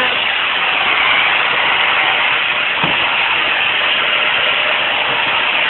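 Vacuum cleaner running steadily, a constant loud whooshing drone.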